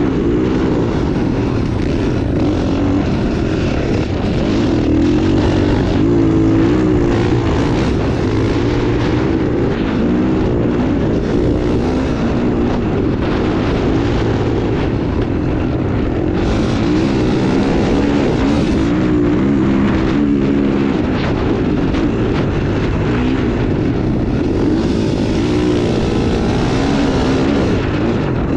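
KTM 450 dirt bike's single-cylinder four-stroke engine running hard, its revs rising and falling continually as it is ridden at speed over sand dunes.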